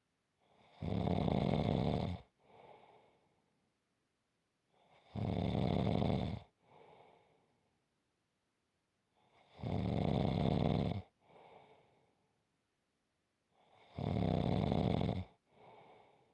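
A person snoring in a steady rhythm: four loud, rattly snores about four and a half seconds apart, each followed by a softer, shorter breath.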